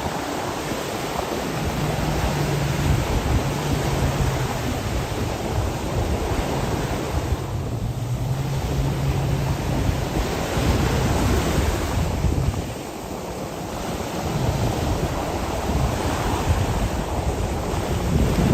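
Jet ski engine running under way, with a steady low hum under heavy wind buffeting on the phone's microphone and the rush of water. The engine drops back briefly twice, about eight seconds in and again around thirteen seconds.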